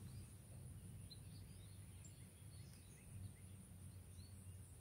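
Near silence: faint outdoor ambience with a low rumble and a few faint, short bird chirps.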